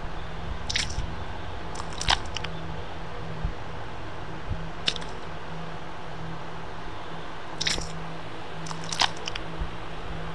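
Dubbed ASMR sound effects: about five brief, crackly squishes spread across the stretch, over a steady hiss and a low hum.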